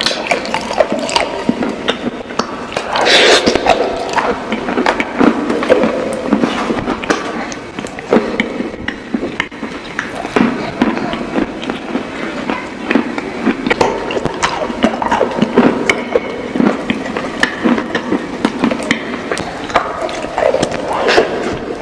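Close-miked eating of chicken wings: chewing and biting with many short, irregular crunches and crackles, and wet mouth sounds between them.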